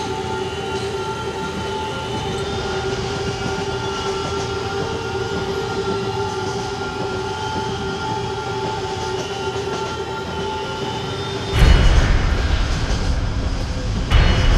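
Passenger train running on the rails: a steady rumble with held high tones over it. About eleven and a half seconds in, the running noise suddenly gets much louder, with a second surge near the end.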